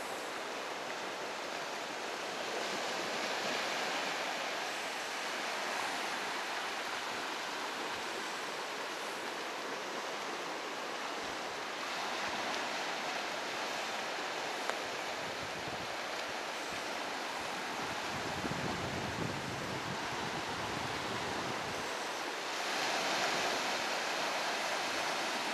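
Ocean surf breaking and washing up a sandy beach: a steady rush of water noise that swells louder as waves break, about three times.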